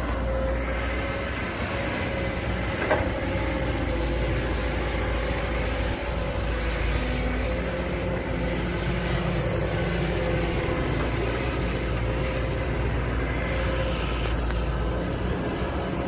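Kobelco crawler excavator's diesel engine running steadily under working load with a constant whine while it digs, with one sharp knock about three seconds in.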